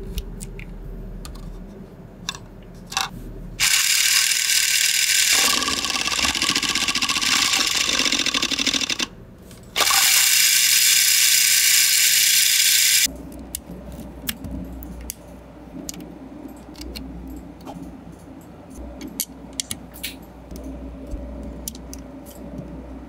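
Electric drill running a Lego Technic gear train and axle, whirring with plastic gear clatter in two runs: one of about five seconds, then after a short pause another of about three seconds. Light clicks of plastic Lego parts being handled before and after.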